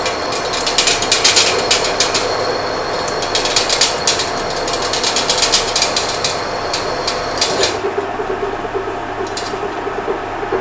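A 1/2-inch twist drill in a machine spindle cutting into a steel block, the motor humming steadily under dense rapid chattering clicks. The clicking thins out to a few scattered clicks about eight seconds in.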